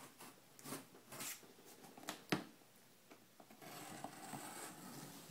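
Fingers scratching and picking at the packing tape and flap of a cardboard shipping box: a few short scrapes, the sharpest just over two seconds in, then steadier soft rustling near the end.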